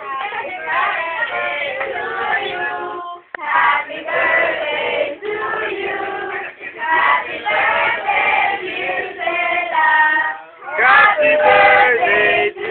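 A group of people, mostly women, singing together without instruments, in held phrases that break off briefly about three seconds in and again near ten seconds; the singing gets louder near the end.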